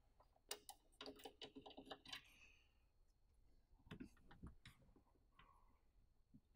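Faint, scattered clicks and light taps of small parts being handled, clustered from about half a second to two seconds in, with a few more around four seconds.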